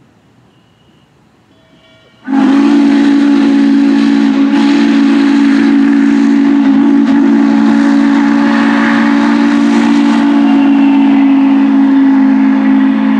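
Train's steam whistle blown in one long, unbroken blast starting about two seconds in: a low chord of steady tones over a strong hiss of steam.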